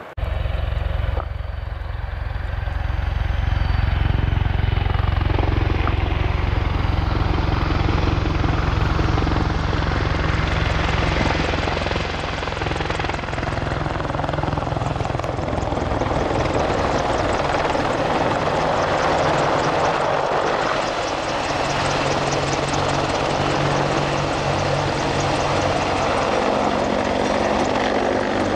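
AH-64D Apache Longbow attack helicopter flying low and close: the rapid, steady beat of its rotor blades over the hum of its engines. The sound cuts in suddenly and grows louder over the first few seconds.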